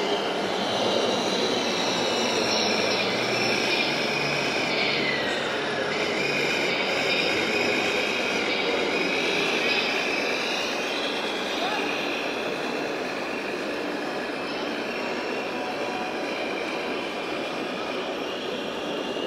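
High whine of the small electric motors and hydraulic pumps of radio-controlled model machines, rising and falling in pitch as they work, over a steady hiss of background noise.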